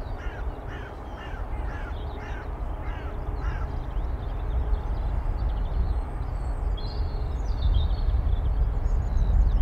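A crow cawing in a quick series of about eight caws over the first three and a half seconds, over a steady low rumble; a few higher, thinner chirps come near the end.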